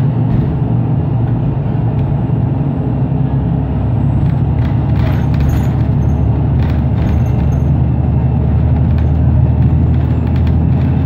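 Inside a New Flyer XDE60 diesel-electric hybrid articulated bus while it drives at speed: a steady low drone from the drivetrain with road and tyre noise. Brief rattles and clinks from the bus's fittings come in a few times around the middle.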